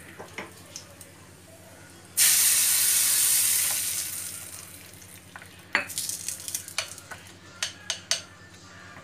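Hot tempering oil with mustard seeds poured from a small frying pan onto coconut-yogurt chutney. It sizzles loudly about two seconds in and dies away over the next two seconds, followed by a series of light clinks and taps as the chutney is stirred with a spoon on the plate.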